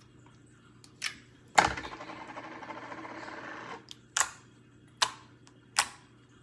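Handling noises between slimes, most likely plastic slime tubs. A click and then a louder knock, followed by about two seconds of rustling, then a run of single sharp clicks, one every second or so.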